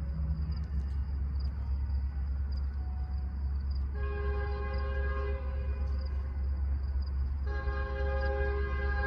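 Multi-chime horn of BNSF GP60M-3 locomotive 121, leading a three-engine train, sounding two long blasts about a second and a half apart from down the line: the opening long-long of the grade-crossing signal. A steady low rumble runs beneath.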